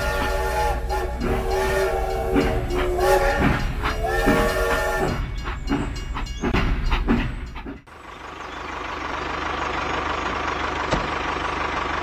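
Battery-operated toy steam locomotive running on plastic track, its sound unit playing a whistle over clattering chugging. About eight seconds in, this cuts off suddenly and a steady rushing noise takes over.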